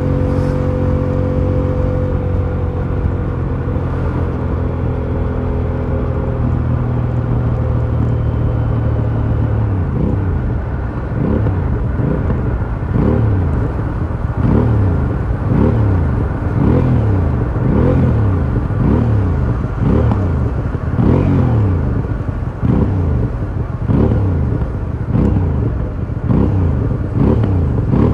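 Aprilia Shiver 750's V-twin engine through its stock exhaust, running at a steady speed and then, about ten seconds in, revved in quick throttle blips about once a second, its pitch rising and falling with each blip.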